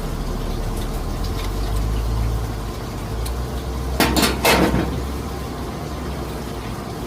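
Dishes and cutlery clinking: a quick cluster of sharp clinks about four seconds in, over a steady low rumble.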